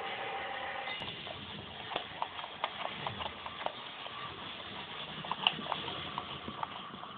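Dog licking yogurt out of a plastic cup, its tongue lapping and smacking in quick, irregular wet clicks.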